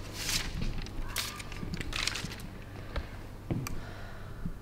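Sheets of paper rustling in several short, irregular swishes as they are handled and sorted, with a couple of light clicks a little past the middle.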